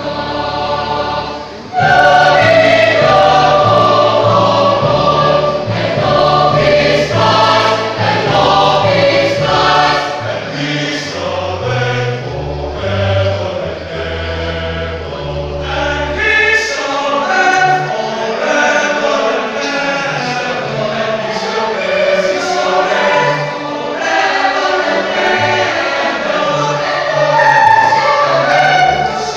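Choir singing a Christian choral anthem in full voice, getting much louder about two seconds in. Low bass notes under the voices drop away about halfway through.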